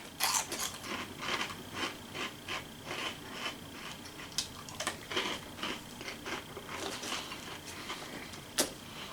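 Close-up chewing of crunchy Cheetos corn snacks: a steady run of sharp crunches, about three a second.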